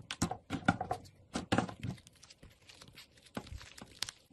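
Pink slime being pressed and squeezed by hand, giving an irregular run of short wet clicks and crackling pops, several a second in little clusters, as air pockets in the slime burst.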